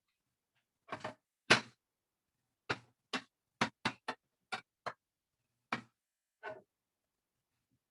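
Plastic Lego pieces clicking and clacking as they are handled and pressed together, about a dozen sharp, irregular clicks with the loudest about a second and a half in.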